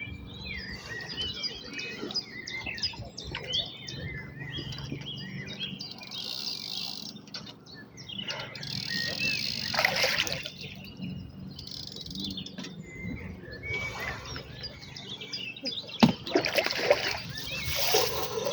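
Birds singing with many short chirps, and water splashing near the end.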